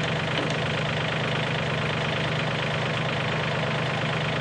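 An engine running steadily at an even speed, a constant hum with no change in pitch or loudness.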